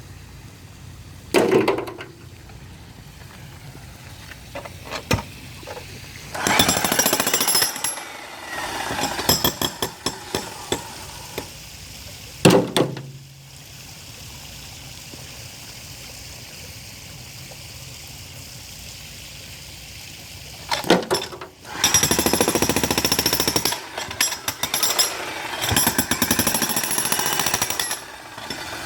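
Jackhammer breaking concrete, running in bursts of a few seconds with pauses between. Two single loud knocks stand out between the bursts.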